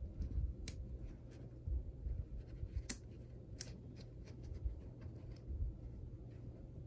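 Magnetic building blocks being handled and snapped together: soft handling and low knocks, with a few sharp clicks as pieces join.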